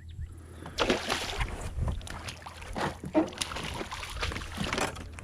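Water splashing in several irregular bursts beside a kayak, from a hooked redfish thrashing at the surface during the fight, over a low steady wind rumble.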